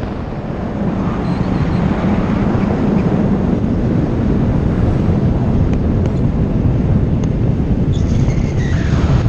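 Steady rush of wind and road noise from a car driving at speed, picked up by a camera mounted on the outside of the car.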